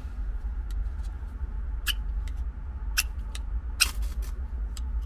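A knife scraped along a ferrocerium fire-steel rod in about eight short, sharp strokes at irregular spacing. The rod's protective coating is still being rubbed off.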